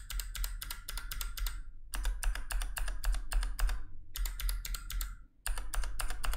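Clicky mechanical keyboard switches typed in quick bursts, first on a 3D-printed case without gaskets, then, about four to five seconds in, on a 3D-printed case mounted on TPU gaskets. This is a side-by-side test of how the gaskets change the typing sound.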